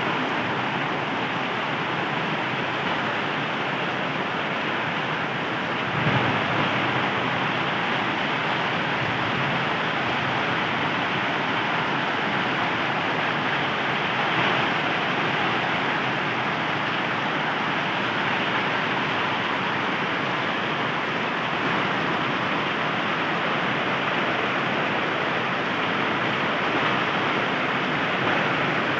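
Steady rain falling, an even hiss, with a brief louder moment about six seconds in.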